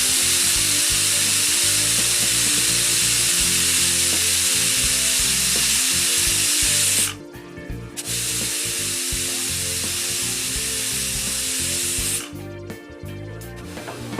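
Pressure cooker whistle blowing off steam in a loud, steady hiss, twice: about seven seconds, then after a short break about four more seconds. It signals that the cooker has reached full pressure.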